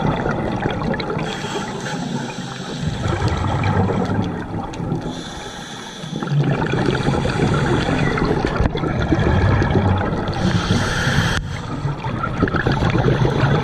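Scuba diver's breathing heard underwater through the camera housing: exhaled bubbles gurgling and rushing in surges a few seconds apart, with a brief hiss near the end.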